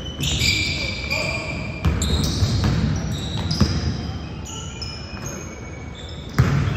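Basketball game play in a gym: sneakers squeak in short, high chirps on the court while the ball thuds as it is dribbled. Several sharp knocks stand out, the loudest near the end.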